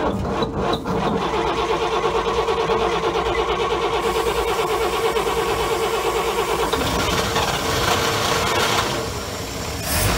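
1954 Chevy pickup's straight-six engine cranking briefly and catching, then running steadily: a warm restart once a loose positive battery terminal has been tightened.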